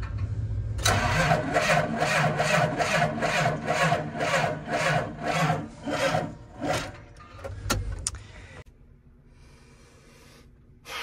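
A John Deere tractor's diesel engine being cranked by its starter, about two to three compression strokes a second, weakening toward the end and stopping after some six seconds without the engine catching: the battery is too weak to start it.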